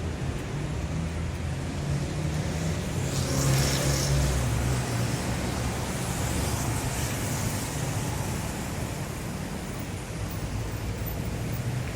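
City street traffic: a steady wash of road and tyre noise with low engine rumble. A vehicle passes close about three to four seconds in, and a smaller swell follows a couple of seconds later.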